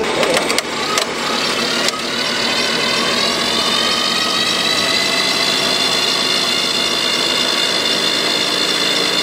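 Radio-controlled model vehicle's motor running steadily, its high whine rising a little and then holding, after a few sharp clicks in the first two seconds.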